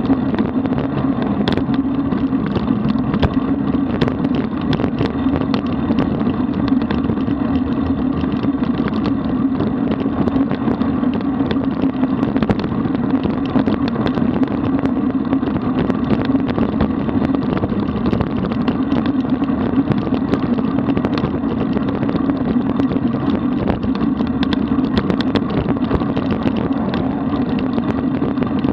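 Steady rushing noise of wind on the microphone and tyres rolling on the road from a moving road bike, with small scattered clicks and rattles.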